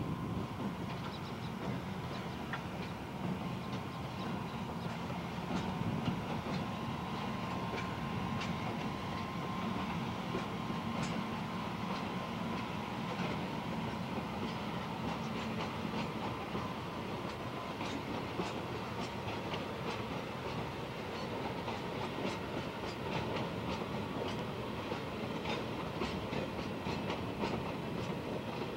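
Electric freight locomotive and a string of tank wagons rolling slowly past, with a steady rolling hum and wheels clicking over the rail joints; the clicks come more often from about halfway through, as the tank wagons go by.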